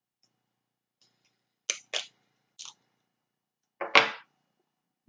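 Close-miked eating sounds from snow crab legs: three short cracks and smacks, then a louder, longer one about four seconds in.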